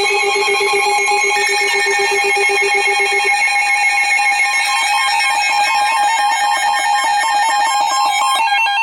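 Several NOAA weather radios alarming at once for a flash flood warning: overlapping electronic alert tones and beeps at different pitches, most of them pulsing on and off rapidly. A lower pulsing beep drops out about a third of the way through while the higher tones carry on.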